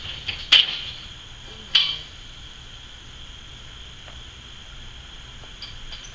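Two sharp knocks about a second apart, over a steady high drone of insects.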